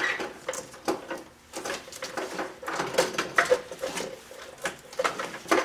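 Irregular clicks, light clatter and rustling as the door's wiring harness is pulled out through its rubber boot in the door opening.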